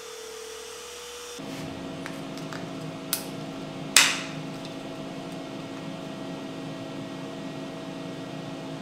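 A CNC router spindle gives a steady whine for the first second and a half. Then comes handling noise from fitting an emergency-stop switch and its retaining nut into a plywood control panel, over a steady hum: a faint click about three seconds in and a sharp, louder click about four seconds in.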